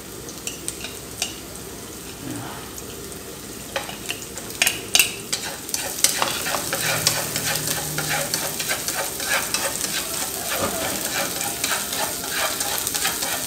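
Minced garlic and lemongrass frying in oil in a frying pan until fragrant, stirred with chopsticks that tick and scrape against the pan. The sizzle is soft at first and grows louder about halfway through.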